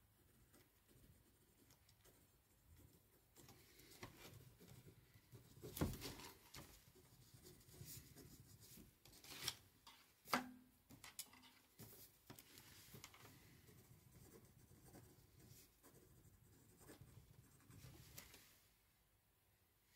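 Faint scratching of handwriting on paper, with a few light knocks in the middle.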